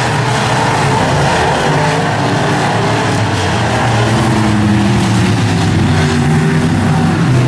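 Dirt-track modified race cars running at racing speed, their engines overlapping, with the pitch rising and falling as they work through the turns.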